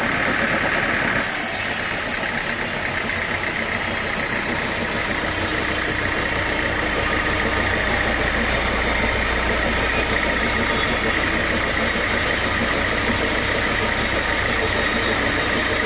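Sawmill machinery running steadily, an engine-driven drone that changes abruptly about a second in and then holds steady.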